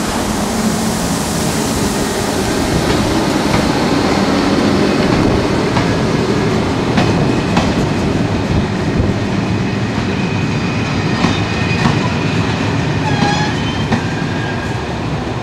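Electric locomotive-hauled passenger train running past at close range: a steady rumble of steel wheels on rail, with wheels clicking over the rail joints. Brief high wheel squeals come near the end.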